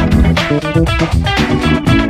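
Background music: a guitar-led track with bass and a steady beat.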